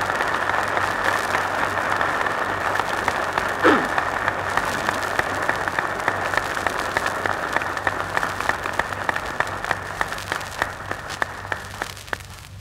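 Audience applauding during a speech, heard through the narrow, muffled sound of a 1940s archival recording. One brief voice-like cry rises above the clapping about four seconds in. The applause thins to scattered claps and dies away near the end.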